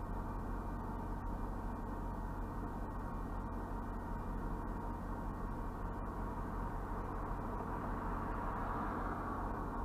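Steady, muffled engine hum heard from inside a parked vehicle, with a slight swell about eight seconds in.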